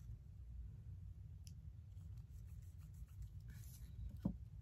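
Faint handling noises as fishing line and small tackle are worked by hand: a few light clicks, a brief rustle, and a short knock near the end, over a low steady hum.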